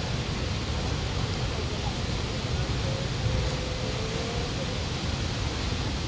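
Steady rushing noise of a tall waterfall plunging into its pool, with a deep rumble underneath.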